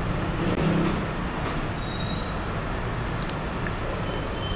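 Steady road traffic noise: a low rumble of passing vehicles, with a few brief, faint high squeaks.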